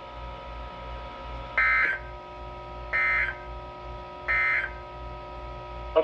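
Three short bursts of Emergency Alert System SAME digital data tones, evenly spaced about a second and a half apart, over a faint steady hum. Each burst is brief, a fraction of a second, the length of the end-of-message (NNNN) code that closes an alert.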